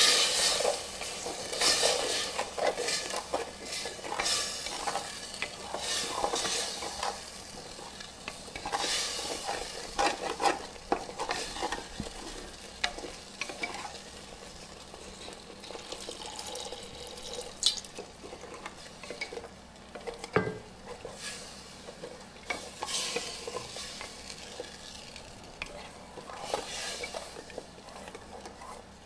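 A cooking spoon stirring and scraping food in a pot over the heat, with a light sizzle under it. The strokes are irregular, busier and louder for the first ten seconds or so, then lighter.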